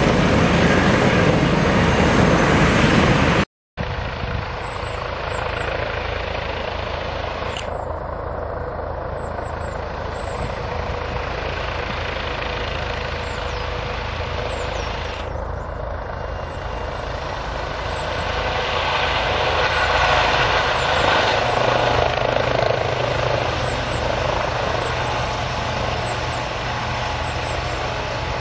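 Airbus H145-family twin-turbine helicopter hovering close by: steady rotor blade noise and turbine whine. A brief cut to silence comes a few seconds in, and the sound grows louder about two-thirds of the way through as the helicopter hovers nearer.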